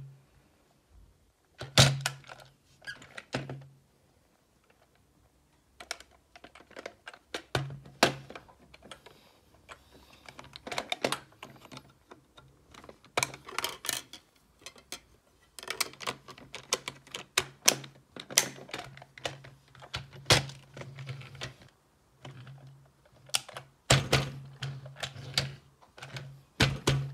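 Plastic clicks and knocks from handling a Chain Fong "Talk to Me" bump-and-go toy robot: buttons pressed and the battery compartment worked open, in irregular runs of quick taps. A low hum comes and goes alongside the clicks.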